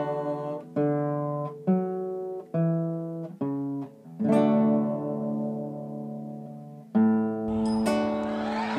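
Nylon-string classical guitar playing a solo ranchera interlude: chords struck about once a second and left to ring, then longer ringing chords from about four seconds in. Near the end a hissing noise rises beneath the guitar.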